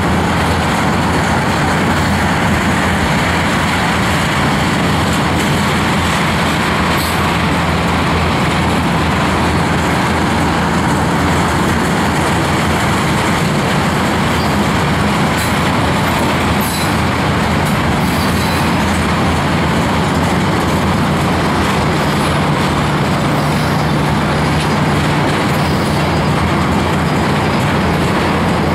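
Railroad tank cars of a freight train rolling past at close range: a steady, loud rumble of steel wheels on the rails.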